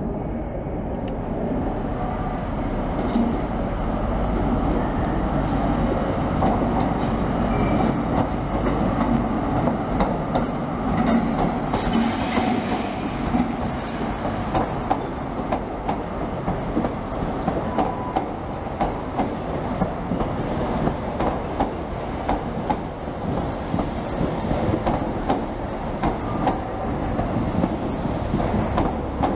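An LNER High Speed Train running past at low speed. The Class 43 diesel power car's engine and rumble build and pass about halfway through. The Mark 3 coaches follow, their wheels clicking over rail joints.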